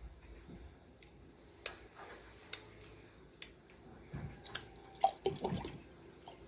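Close-miked wet eating sounds of rice fufu in chilli soup: a few sharp smacks and clicks about a second apart, then a busier run of squishing, wet smacks near the end.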